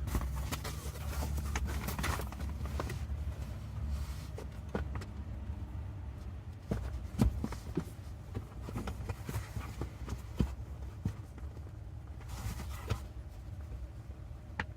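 Hands working foam and fabric into a Cybertruck seat back: rustling and scattered plastic clicks and knocks, the sharpest about 7 and 10 seconds in, over a steady low hum from the truck's HVAC fan.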